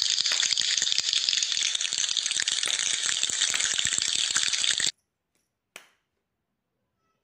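Dense, even rain-like patter of countless small taps, like heavy rainfall, that cuts off abruptly about five seconds in. A single faint click follows.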